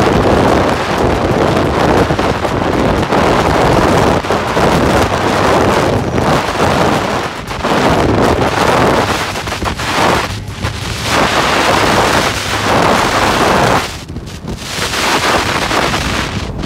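Strong, sustained wind blasting across the microphone: a loud, steady rushing that eases briefly a few times. The hiker reckons it at a sustained 80 to 90, not gusting.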